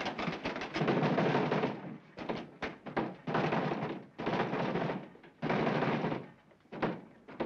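Theatre audience applauding in repeated bursts, each about a second long, starting and dying away with short gaps between them.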